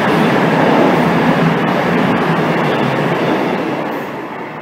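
CrossCountry Class 221 Super Voyager diesel-electric train passing close by at speed: a loud rushing rumble that fades as the train pulls away near the end.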